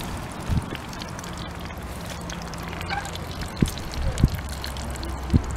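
Muscovy ducklings feeding together from a shared dish, their bills making quick wet clicks and dabbling sounds. A steady low hum runs underneath, with a few short low thumps in the second half.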